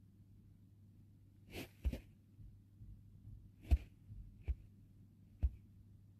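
Quiet room with a faint steady hum and a few brief soft clicks and breath-like noises close to a phone's microphone, about four in all.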